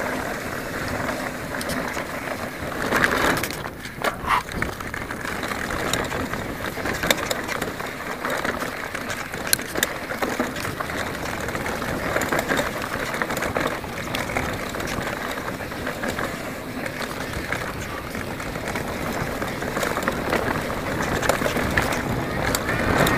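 Specialized Enduro full-suspension mountain bike descending a dirt trail at speed: a steady rush of tyres on dirt and wind, broken by frequent rattles and knocks as it hits bumps.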